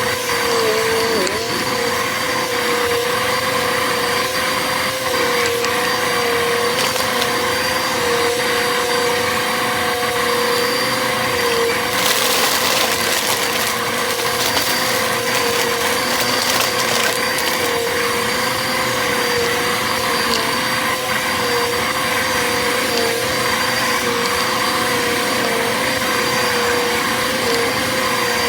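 Bissell vacuum cleaner running steadily, its motor holding a constant whine over airflow hiss. About twelve seconds in, a few seconds of crackling as foil confetti is sucked up.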